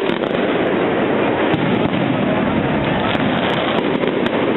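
Aerial fireworks bursting overhead, with many short sharp crackling pops over a steady loud din.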